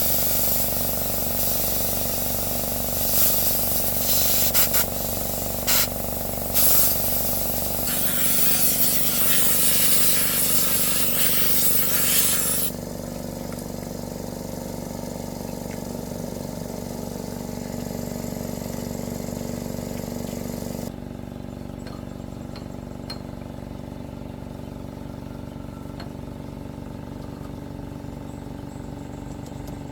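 Machinery running with a steady hum and a hissing noise over it. The sound changes abruptly about 8, 13 and 21 seconds in, as if several clips of work noise were cut together.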